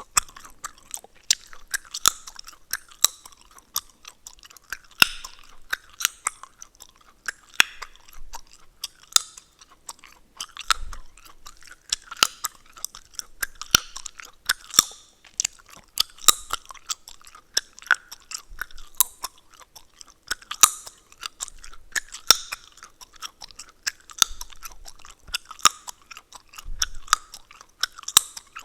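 Close-miked gum chewing: wet smacks and sharp gum cracks, about one to three a second in an uneven rhythm.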